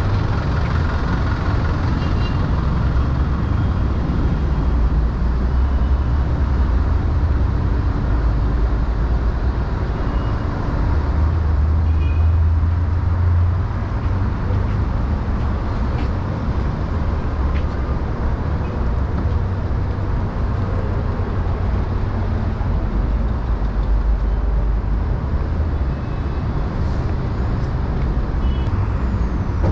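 Busy city street traffic: cars and taxis passing close by as a steady low rumble.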